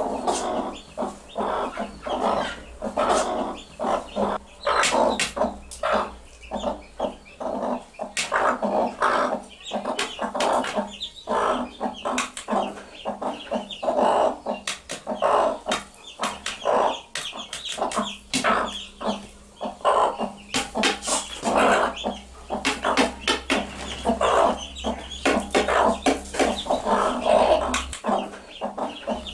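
Two broody mother hens clucking over and over in quick, short calls, the calls a hen uses to summon her chicks.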